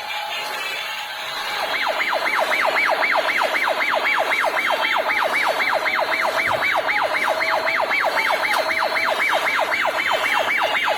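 Electronic siren sound effect from a toy remote-control car, a fast up-and-down wail repeating about three and a half times a second, starting about a second and a half in.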